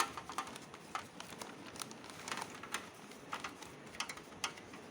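Faint scattered clicks and light rustling of handling: ceiling-fan blades and their plastic packaging being moved about.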